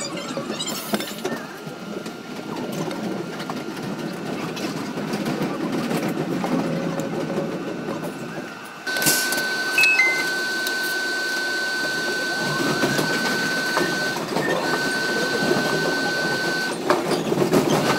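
Sped-up running noise of an R62A subway train, a busy rumble and rattle. About nine seconds in the sound changes suddenly to a steady high tone that breaks off twice, with a quick two-note falling tone just after the change.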